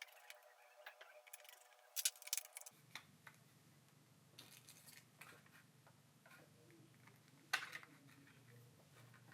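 Faint, scattered small clicks and ticks of a small screwdriver and hand work on a smartphone's plastic frame during reassembly, with a few sharper clicks about two seconds in and again near the end.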